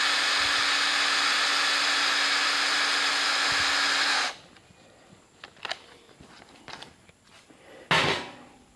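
Electric drill running steadily at full speed, spinning a length of galvanized tie wire held taut from a bench vise to straighten it; the drill stops about four seconds in. Faint clicks of the wire being handled follow, then one brief loud clank near the end.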